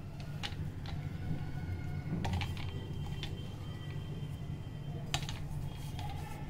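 A hand mixing dry ground sambhar masala powder in a steel plate: short, irregular light clicks and ticks of contact with the metal, a cluster of them near the end, over a steady low hum.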